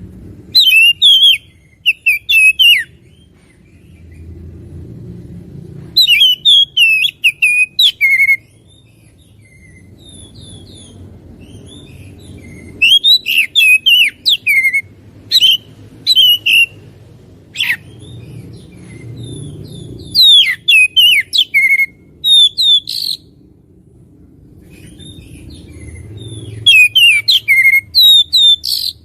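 Oriental magpie-robin (kacer) singing: loud bursts of rapid, varied whistled notes, in about five phrases a few seconds apart.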